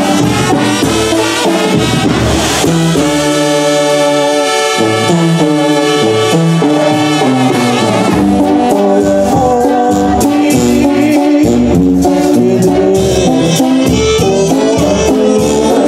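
Loud live band music led by brass playing sustained chords, with shaken percussion and a pulsing bass beat: an instrumental passage with no singing.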